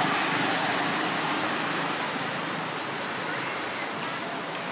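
Steady, even rush of outdoor background noise with no distinct events.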